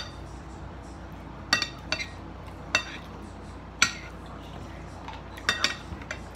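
Forks clinking against dinner plates as food is picked up: about eight sharp, irregularly spaced clinks, each with a short ring.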